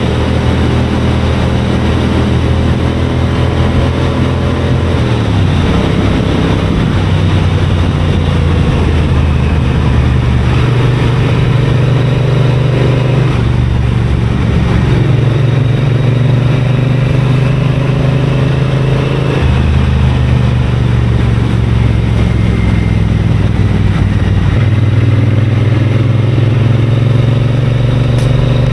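Triumph Bonneville parallel-twin engine running under way. Its pitch climbs as it pulls, then drops sharply at gear changes about four times, with a constant rush of wind noise.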